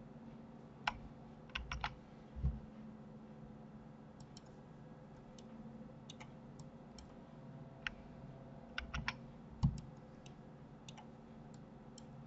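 Computer mouse and keyboard clicks: scattered sharp clicks, some singly and some in quick clusters, with a couple of dull thumps, over a faint steady hum.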